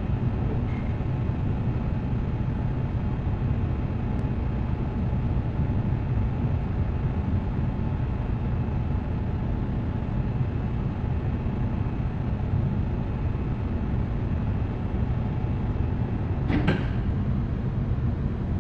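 A small lathe running steadily while spinning a silver liner, a low hum with a few steady tones. One sharp knock near the end.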